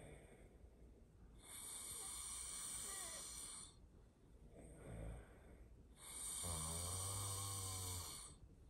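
A sleeping person snoring loudly: two long snores about four and a half seconds apart, with a short weaker breath between them. The second snore has a low buzzing drone under it.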